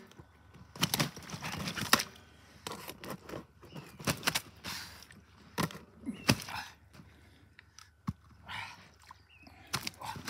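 Irregular knocks, clicks and rustles from a wet floating carp sling being handled in the shallows while a large common carp is held in it for release.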